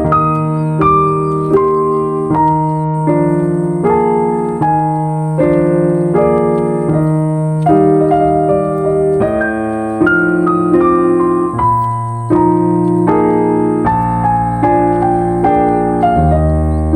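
Calm background piano music: a steady stream of notes, about two a second, over sustained low bass notes.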